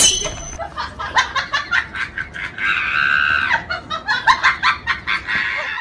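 A person laughing in quick, high-pitched bursts, with a longer squeal of laughter a little before the middle.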